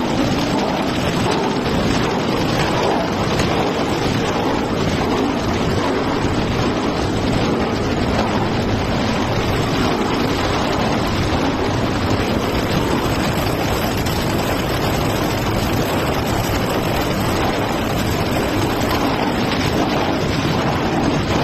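Plastic bag crushing and washing line running, a steady, unbroken machine noise with water churning through it.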